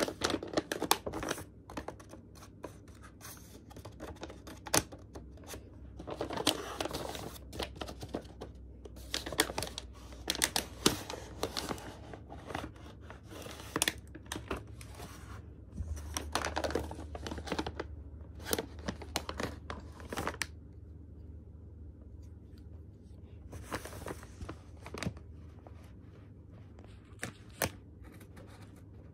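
Homemade paper packages being handled and torn open by hand: irregular crinkling, rustling and sharp paper snaps, with quieter pauses in between.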